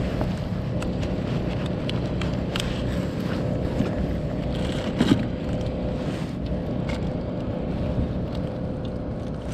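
Steady low rumble with a constant hum, overlaid by scattered light clicks and knocks from handling a battery box and the wiring of a portable LED work light, with one louder knock about five seconds in.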